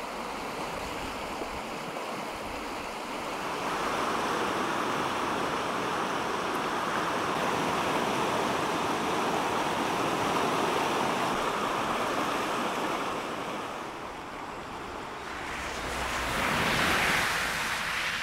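River in spate: fast brown floodwater rushing and churning, a steady roar of water. It grows louder a few seconds in, eases off briefly about three-quarters of the way through, then swells again near the end.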